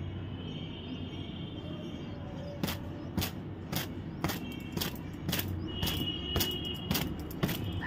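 Thin cotton gamchha towel whipped against long wet hair to dry it, making sharp slaps about twice a second that start a couple of seconds in, over a low steady background rumble.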